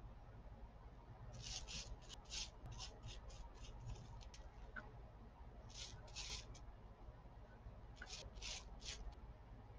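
Foam brush dabbing paint onto a sheet of bubble wrap: faint, short scratchy rubbing strokes in little runs of two to four, with pauses between.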